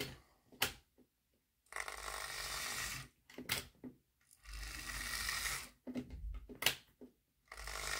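Hornby OO-gauge 'Britannia' model steam locomotive's electric motor and gears whirring in three short runs of about a second and a half each, with a few sharp clicks in the pauses between, as the locomotive is test-run after its pony-truck electrical contact has been tightened.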